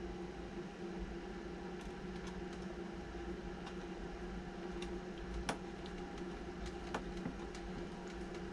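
Steady low hum of background machinery or electrics, with scattered light clicks and ticks, the two sharpest about five and a half and seven seconds in, as hands handle and fit small gold-chrome plastic parts of an RC lowrider.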